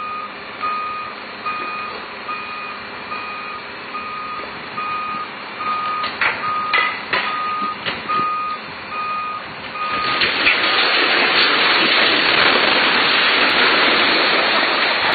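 A machine's reversing alarm beeping steadily, about once a second, with a few sharp cracks around six to eight seconds in. About ten seconds in, a steel-framed building collapses, making a loud, continuous crash of falling debris that drowns out the beeping.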